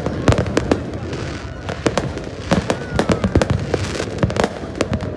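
Fireworks display: aerial shells bursting in quick, irregular bangs, several a second.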